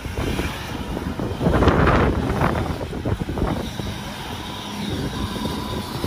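A vehicle's engine revving while its tyres spin in deep snow, mixed with wind gusts on the microphone. The sound surges hardest about one and a half to two seconds in, then settles into a steadier drone for the second half.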